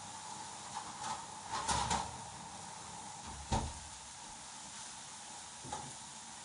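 A metal oven tray being pushed back into a wall oven with a clatter, then the oven door shutting with a sharp knock about three and a half seconds in, over a steady hiss.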